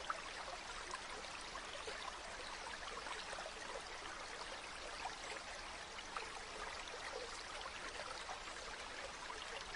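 A small stream flowing steadily over stones, its water trickling and babbling in a constant rush.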